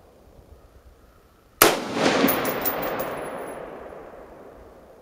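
A single shot from a DPMS M4 carbine, an AR-15-pattern rifle, about one and a half seconds in. The sharp report echoes and dies away over about two seconds.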